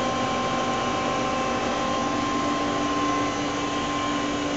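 Steady machine hum of a Star SV-20 CNC Swiss-type lathe running, with several steady whining tones over a noise floor; one lower tone fades out near the end.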